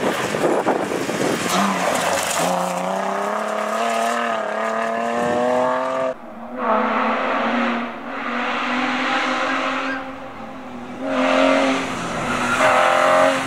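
Historic rear-wheel-drive rally cars passing at speed on a stage road: a Mercedes C-Class saloon at full throttle, its engine note rising and falling, with tyres on loose gravel. About 6 s in, the sound cuts to a car pulling away through dust. About 11 s in, a BMW E30's engine comes in louder as it takes a bend.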